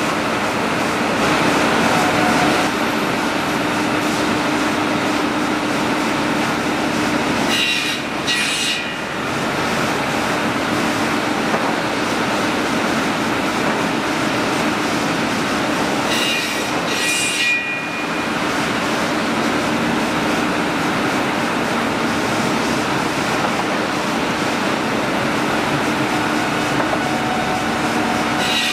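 Sawmill drop saw trimmer running, its 28-inch saws driven hydraulically by a line shaft, with chain conveyors carrying boards: a steady mechanical whir with a few steady tones. Short, higher-pitched whines break in about eight seconds in, again around seventeen seconds and at the very end, as boards are trimmed.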